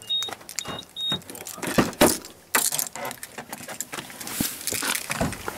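Car keys jangling and a few short high beeps in the first second or so, then two sharp clicks around two seconds in as the car door is opened, followed by rustling and knocking as someone climbs into the driver's seat.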